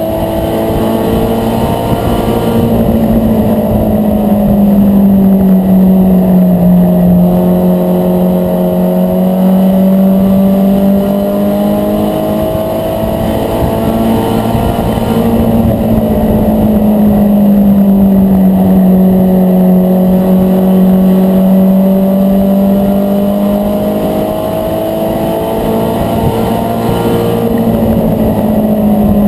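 Mini stock race car's engine heard from inside the cockpit, running hard at race speed. Its pitch sags and climbs back twice, once per lap.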